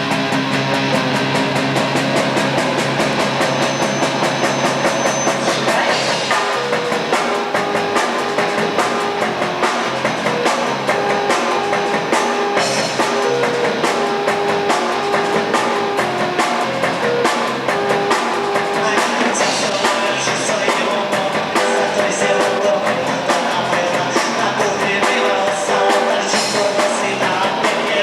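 Live rock band playing a song, with guitar and drum kit.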